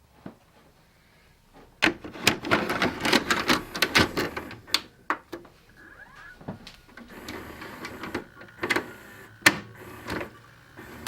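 A run of sharp mechanical clicks and clatter starting about two seconds in, easing into softer rattling with scattered clicks later on.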